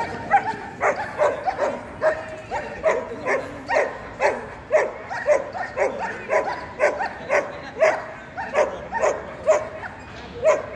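A German shepherd dog barking over and over in a steady rhythm, about two barks a second.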